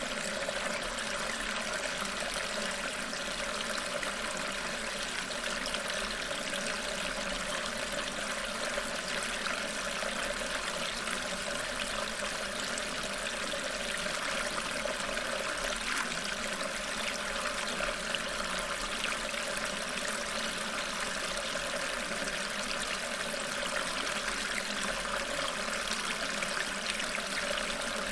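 Steady, unbroken running-water ambience like a flowing stream. It is a masking track with subliminal affirmations embedded beneath it.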